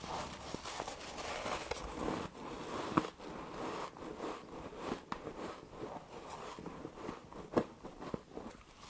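Frost being bitten and chewed close to the microphone: a steady crackly crunching with a few sharper crunches, about three seconds in and again near the end.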